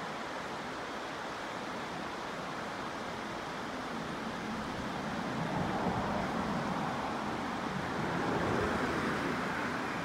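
Shallow mountain stream rushing over rocks, a steady hiss of water. A louder rumble swells up about halfway through and fades toward the end.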